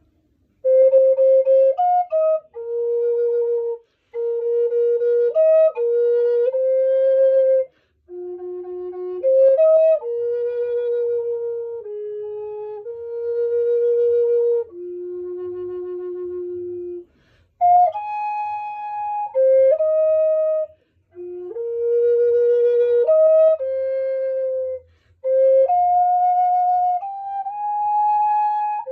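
Solo flute playing a slow melody of held notes, with short pauses between phrases.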